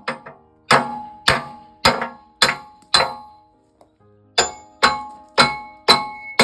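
Hammer blows on a steel drift, driving out the keepers that hold a backhoe bucket's tooth pins: ringing metal strikes about two a second, in two runs of five with a short pause in the middle.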